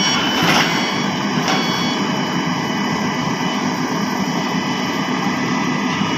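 SANY SR155C rotary piling rig's diesel engine running steadily, with a thin, steady high whine over it.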